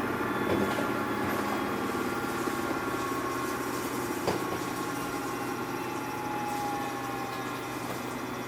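Samsung washing machine running its cycle: a steady mechanical hum with held whining tones, and a couple of light knocks.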